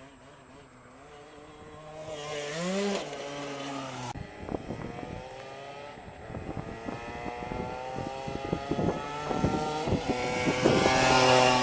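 Gilera RCR motorbike engine revs briefly, then pulls away with its pitch climbing steadily as it gains speed. It gets louder near the end. Sharp knocks and clatters sound through the middle.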